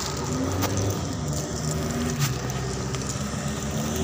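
A motor vehicle engine running steadily close by, a low hum that shifts slightly in pitch, with a couple of sharp clicks.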